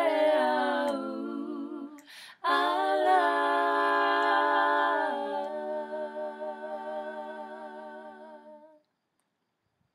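Three women singing a Tongan hymn a cappella in close harmony. After a short breath about two seconds in, they hold one long chord with vibrato that slowly fades and stops about nine seconds in, closing the song.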